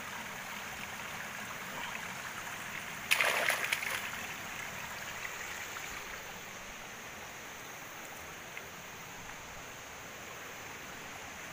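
Steady rush of river water flowing over rocks, with a brief, louder burst of noise about three seconds in.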